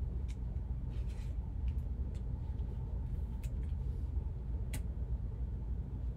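Light clicks and taps of trading cards and plastic card holders being handled by gloved hands: a few scattered strokes, the sharpest near five seconds in. A steady low hum runs underneath.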